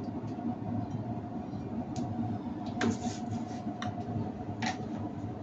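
Gas stove burner running under an empty pot as it heats: a steady low rumble with a faint hum, and a few light ticks and clicks from about two seconds in.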